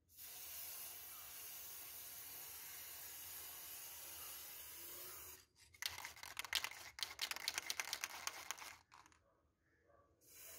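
Aerosol spray paint can hissing steadily as it sprays, stopping after about five seconds; then about three seconds of loud, irregular crackling and clicking.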